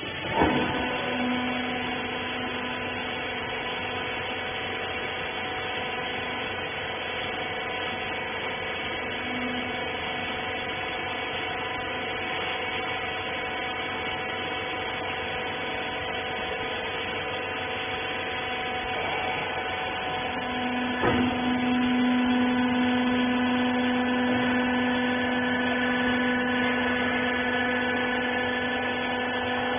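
Small rag baler's hydraulic pump motor running with a steady electric hum. A knock comes just after the start, and another about two-thirds of the way through, after which the hum grows louder, as the pump takes on load.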